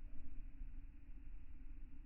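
Faint steady background noise: a low hum and rumble with a soft hiss, and no bird calls, clicks or other distinct sounds.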